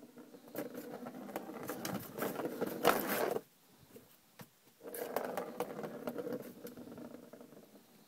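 Plastic ball rolling around the track of a circular cat toy with clicks and rattles, swatted by a cat. It runs for about three seconds and stops suddenly when caught, then rolls again from about five seconds in and fades out.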